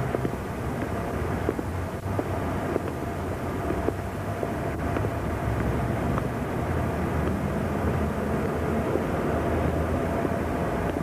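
Steady engine drone of a vehicle, with a low hum and a faint held tone.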